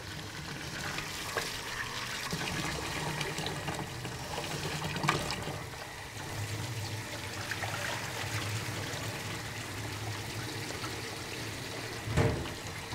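Tap water running into a stainless steel bowl of rice while hands swish and rub the grains in the water, rinsing the rice; the water sloshes a little louder near the end as the bowl is tipped.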